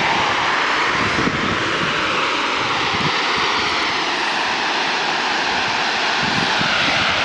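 Steady, loud roar of an aircraft passing overhead, its tone slowly sweeping, with a few gusts of wind on the microphone.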